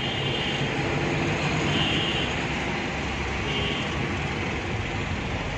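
Steady low rumble and hiss of a running vehicle engine, with faint high tones coming and going twice.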